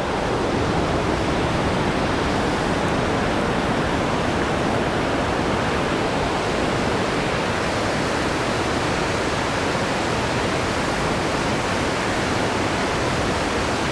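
Loud, steady rush of a large river waterfall running at unusually high water, an even wash of noise with no change.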